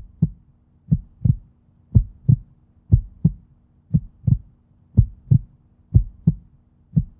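Slow heartbeat: paired low thumps, lub-dub, about once a second, over a faint steady hum.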